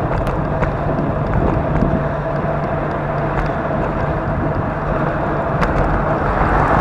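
Car driving at highway speed: steady road and wind noise with a faint steady whine.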